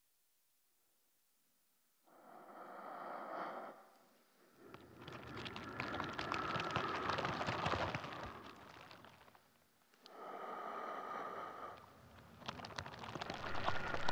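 Crackling, rustling noise that comes in four swells, the last one growing louder toward the end.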